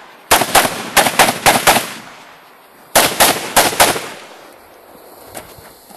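Colt M4 carbine fired semi-automatically in quick strings: about six or seven shots at roughly four a second, a short pause, then about four more, each shot ringing out briefly.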